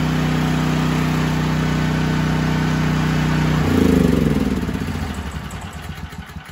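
Troy-Bilt XP 7000-watt portable generator's engine running steadily on propane through a newly fitted conversion kit. About three and a half seconds in it is switched off, and it winds down in falling pitch to a stop.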